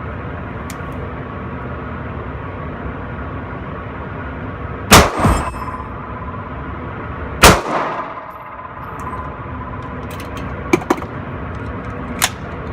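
Two pistol shots from a 9mm 1911, about two and a half seconds apart, each with a short echoing tail, followed by a few lighter metallic clicks near the end.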